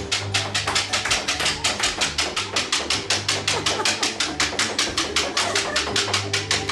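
Music with a fast, even pattern of sharp percussive hits, about nine a second, over a low bass line.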